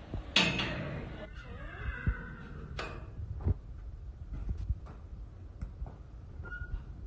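A loud animal cry that starts suddenly about a third of a second in and falls in pitch over about two seconds, followed by a few light clicks.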